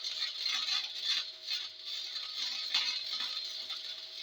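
Arc welder laying a bead on a steel truck frame, the arc crackling steadily with irregular pops.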